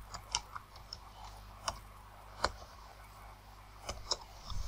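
Computer keyboard keystrokes as a word is typed: a handful of short, irregular clicks over a faint steady low hum.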